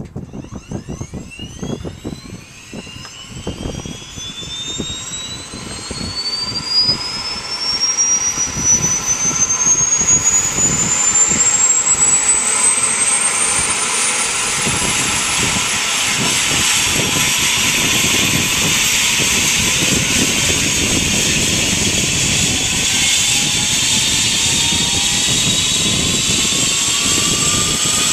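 Eurocopter EC135 helicopter starting up: the turbine whine climbs steeply in pitch over the first ten seconds or so and then holds steady. The main rotor's beat quickens and grows louder as the blades come up to speed, levelling off about halfway through.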